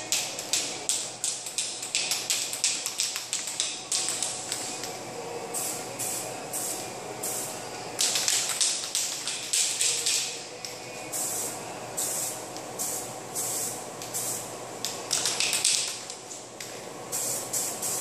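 Aerosol spray can of etch primer hissing in many short bursts, with brief pauses between passes and a longer lull about two-thirds of the way through.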